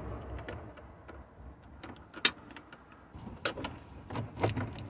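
Scattered metallic clicks and taps of a hand wrench working the nut on a car battery's negative terminal, over a faint low hum. The sharpest click comes about two seconds in, and a few more follow near the end.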